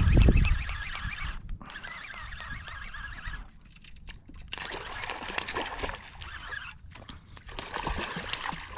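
Wind buffeting the microphone at first, then open water lapping with scattered small clicks and splashes. Near the end a hooked fish splashes at the surface.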